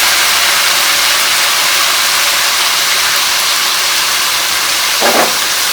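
Fried chicken pieces sizzling in hot oil in a cooking pot: a loud, steady hiss.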